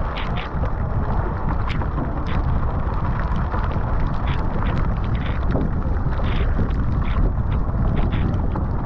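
Wind buffeting the microphone, with a steady rush of choppy water along a Fenn Elite S surfski's hull. Short splashes about once a second as the paddle blades dig in and pull out.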